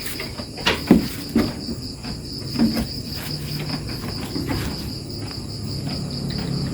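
Insects, crickets by their sound, chirping in a steady high pulsing trill, with scattered short knocks and clicks.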